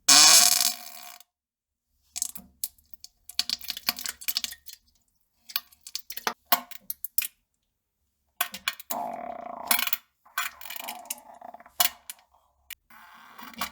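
A series of farts of varying length, some crackling in short spurts, one longer and buzzy, separated by silent gaps. The loudest is the first, right at the start, about a second long and rising in pitch.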